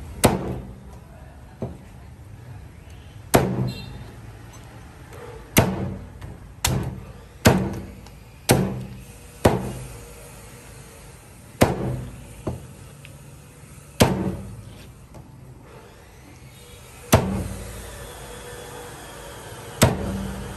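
Chinese cleaver chopping through king crab shell and meat onto a thick plastic cutting board: about a dozen sharp chops at uneven intervals, one to three seconds apart.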